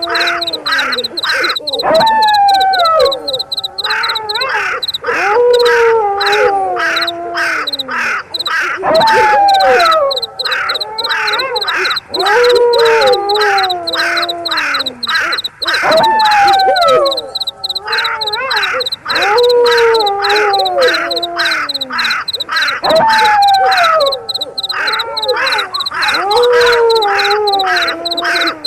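Layered night-animal soundscape: a wolf howl, each one a falling call of about two seconds, repeating about every three and a half seconds, over rapid harsh calls and a steady high insect trill.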